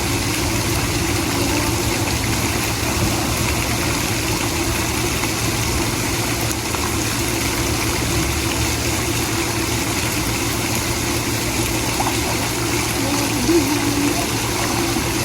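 Steady low mechanical hum under a constant rushing noise, unchanging throughout.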